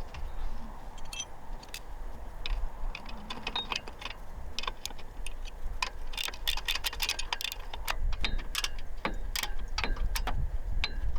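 Clicking and tapping of hand tools on the exhaust header bolts, scattered at first and coming in quicker runs from about halfway through. A low rumble runs beneath the clicks.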